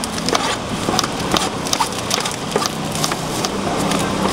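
Small knife cutting into and cracking the skins of small round fruits as they are peeled by hand: a run of irregular crisp clicks and snaps over steady background noise.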